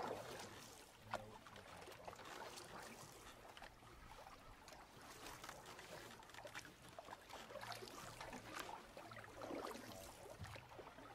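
Faint canoe paddling: water splashing and trickling off the paddle blade, with one sharp knock about a second in.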